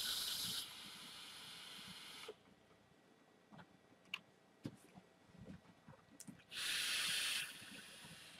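Airy hiss of a person drawing on a box-mod vape and blowing out vapor, once for about two seconds at the start and again for about a second near the end, with a few faint ticks between.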